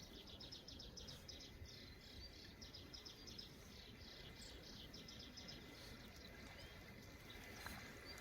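Faint chirping calls outdoors, short high notes repeating about five times a second in runs, over a low steady background rumble.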